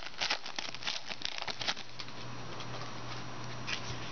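Clear plastic wrapper of a football trading-card pack crinkling and crackling as it is pulled open, for about the first two seconds, with a brief crinkle again near the end. A steady low hum runs underneath.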